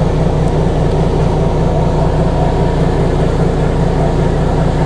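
Steady machinery hum of a Sunseeker 76 motor yacht at the berth: engines idling with the hydraulic thrusters engaged, holding the boat in place against the wind.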